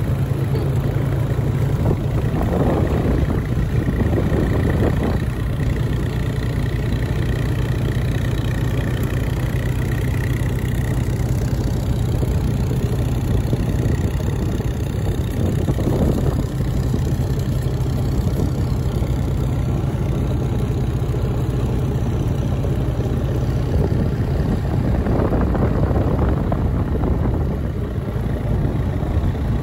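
ATV (quad) engine running steadily, with a few brief swells of louder noise.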